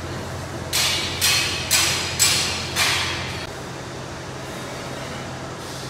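Double-wire automatic chain link fence machine running: a steady motor hum with five loud metallic clacks, about two a second, as its mechanism weaves the wire. The clacks stop partway through and the hum drops lower.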